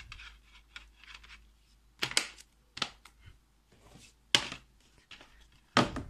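Plastic DVD keep cases and a disc being handled: a string of sharp plastic clicks and knocks, with four louder ones about a second apart from two seconds in, as the disc is pressed onto the case hub and the cases are shut, moved and set down.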